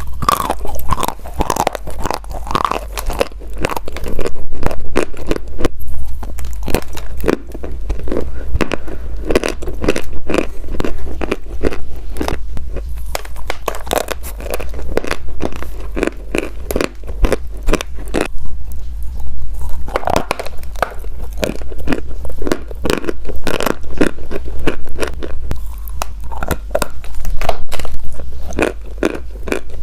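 Close-miked crunchy chewing and biting of a burger: continuous wet crackles and crunches with no pauses longer than about a second.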